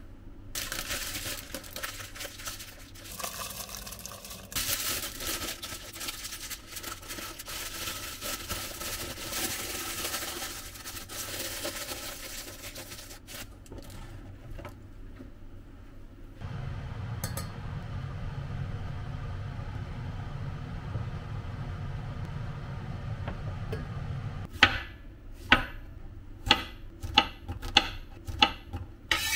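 Aluminium foil crinkling and rustling for over ten seconds as the parchment-and-foil packets are folded shut, then a low steady hum. Near the end comes a run of about eight sharp knife chops through a zucchini onto a cutting board, the loudest sounds.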